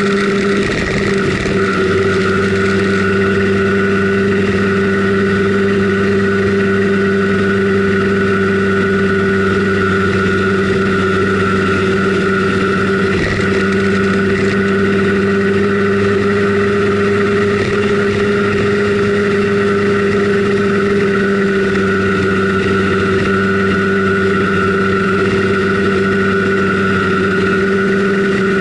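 Simson Schwalbe KR51/2 scooter's 50 cc single-cylinder two-stroke engine running under way at a steady speed, its pitch holding nearly constant throughout.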